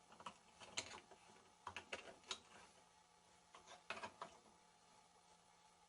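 Faint scattered clicks and scrapes, in a few short clusters, of a small screwdriver prying the plastic timer cap off a Maytag washer's timer knob.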